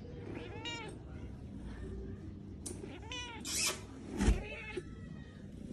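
Persian cat in labour meowing three times, each a short call that rises and falls in pitch. A single thump comes about four seconds in, between the last two calls.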